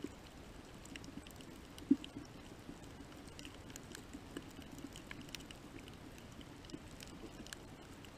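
Underwater reef sound: many faint, scattered clicks and crackles over a low steady hum, with one louder click about two seconds in.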